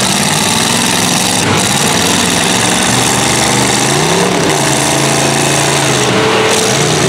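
Loud engines of full-size demolition-derby vans running hard under load as the vans push against each other. One engine revs up about four seconds in.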